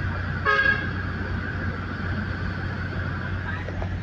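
Caterpillar 320D excavator's diesel engine running steadily, with a brief horn toot about half a second in.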